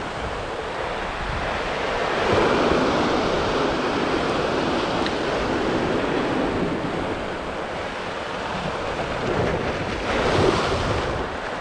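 Ocean surf washing and churning against a rock ledge, with wind on the microphone. The wash swells up about two seconds in and again near the end.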